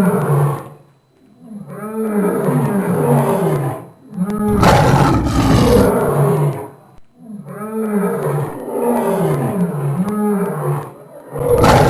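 Sound-effect roars of a lion-like predator: four deep, loud roars of about two seconds each, with short pauses between them. The pitch wavers up and down through each roar, and the second pair repeats the pattern of the first.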